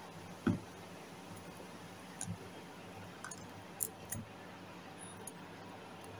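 Light handling noise of hands working clear monofilament fishing line and small rig parts: a few soft knocks and clicks, the loudest about half a second in, over a steady faint hum.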